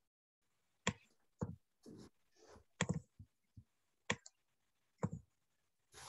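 Faint, irregularly spaced clicks and taps, about a dozen of them, some with a dull thump, from someone working at a computer desk.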